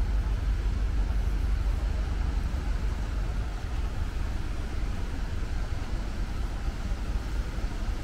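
Steady low rumble with a continuous hiss: outdoor urban background noise.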